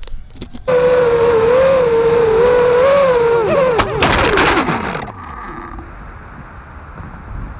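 FPV racing quadcopter's brushless motors and propellers whining loudly from under a second in, the pitch wavering with throttle. Near the middle the whine slides down in pitch and breaks into about a second of harsh clattering and scraping as the quad crashes, then drops to a low hiss.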